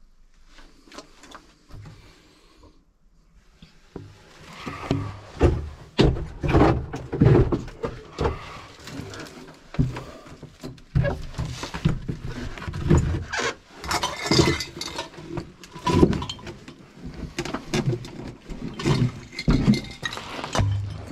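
Irregular footsteps crunching and scuffing over rubble, broken glass and litter, starting about four seconds in, mixed with knocks and bumps.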